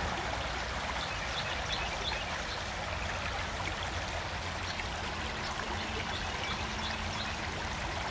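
Creek water running over rocks, a steady even rush.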